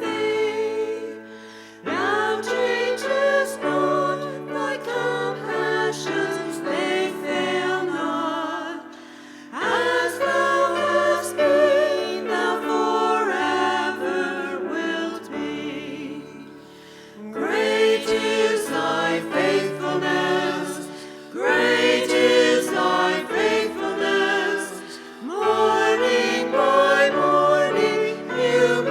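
Choir singing a hymn in long phrases, with short pauses for breath between the lines.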